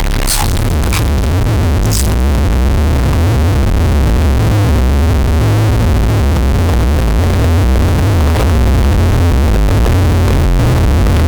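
Mike Wazowski's burp sample slowed down and distorted into a long, deep, noisy rumble, with a few crackles in the first two seconds.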